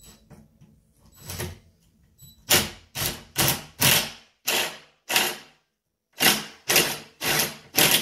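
Wood chisel cutting into a door to enlarge the hole for a new lockset: a run of about ten scraping strokes, roughly two a second, with a short pause partway through.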